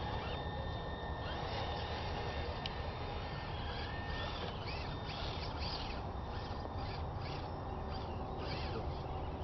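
Radio-controlled scale crawler truck driving slowly through thick mud, over a steady low rumble. From about four seconds in, a series of harsh calls like crows cawing, two or three a second.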